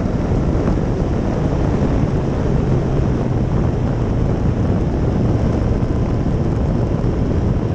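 Kawasaki Z900's inline-four engine through an Akrapovic aftermarket exhaust, running at a steady pitch at road speed, with heavy wind noise on the microphone.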